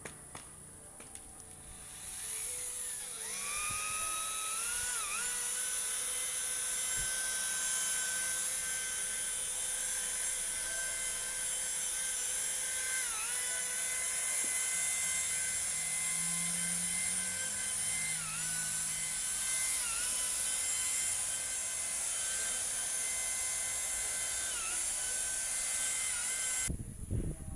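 Electric rotary polisher with a buffing pad running on a freshly painted car bumper, working finer compound to take out buffing scratches. It spins up with a rising whine about two seconds in, the whine dips briefly several times, and it stops near the end.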